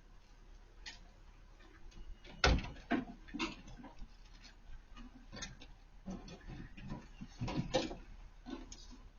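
Irregular clicks and knocks, the loudest about two and a half seconds in and another cluster near the end, over a faint low hum.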